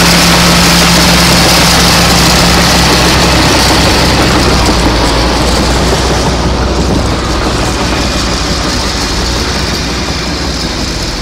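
Caterpillar crawler loader's diesel engine running, loud and steady; a steady engine note in it drops out about three and a half seconds in.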